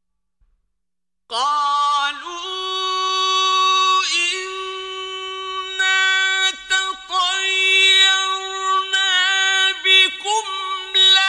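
Quran recitation in the slow, melodic mujawwad style. After about a second of silence, a single male voice comes in on a high, long-held note and then keeps sustaining it with ornamental turns and short breaks for breath.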